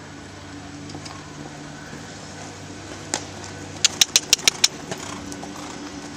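Horse cantering close by on the sand arena: a single sharp hoofbeat about three seconds in, then a quick run of six sharp hoofbeats, over a steady low hum.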